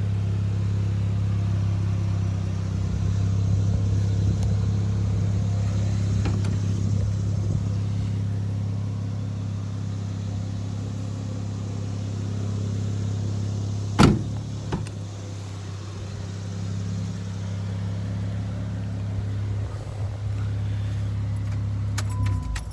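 2018 Jeep Wrangler JK's 3.6-litre V6 idling steadily through a Pypes stainless cat-back performance exhaust, a low, even drone. A single sharp knock comes about two-thirds of the way in, and right at the end a short electronic tone sounds and the engine cuts off.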